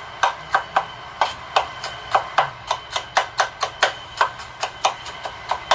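Knife mincing garlic on a cutting board: quick, even chopping strokes, about three to four a second.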